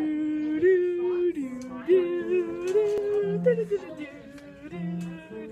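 A voice singing a warbling, yodel-like run of held notes that slide between pitches, with lower notes coming in twice in the second half.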